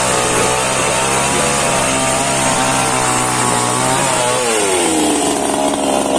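H&L Pro mini chainsaw engine, more than a year old, running at high revs steadily, then the revs fall away about four seconds in and settle lower toward idle near the end.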